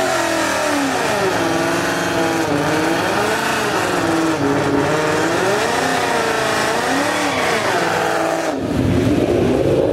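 A Ford Mustang's engine revved up and down again and again during a burnout, the pitch rising and falling about once a second. Near the end a louder, rougher rush of engine and tyre noise takes over.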